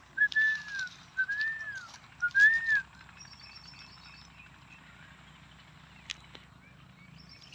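Three short whistled notes, each rising then falling in pitch, about a second apart, then quiet: a person whistling to call young partridge chicks into their cage.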